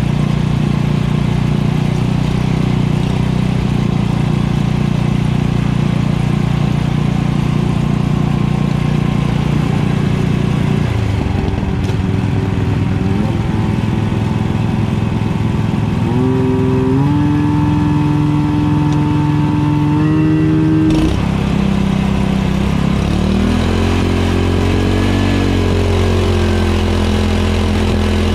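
Portable fire pump engine running steadily under test while the pump is primed with water poured from a bucket. Its speed rises in steps about halfway through, drops sharply about 21 seconds in, then settles at a different steady note.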